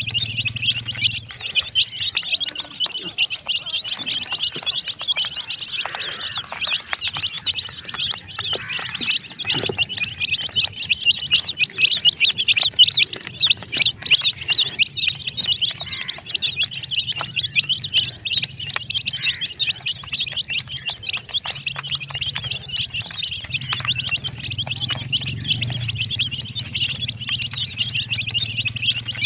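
A flock of domestic chicken chicks peeping continuously, many short high cheeps overlapping in a dense chorus.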